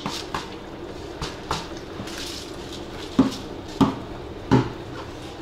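Rice tipped from a plastic bowl into a pilaf kazan, then three sharp knocks against the kazan, about two-thirds of a second apart, as the pot is covered with the upturned bowl.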